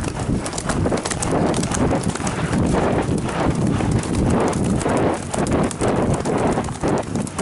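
Hoofbeats of horses moving quickly on a dirt and gravel track, heard from the saddle of one of them as a dense, steady run of hoof strikes.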